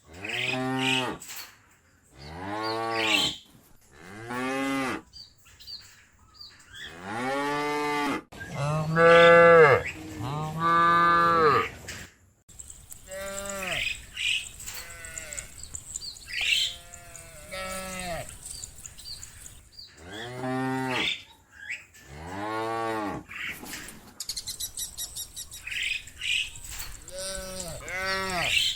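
Cattle mooing, one drawn-out call after another with short pauses between, about a dozen moos, each rising and falling in pitch, the loudest pair about a third of the way in.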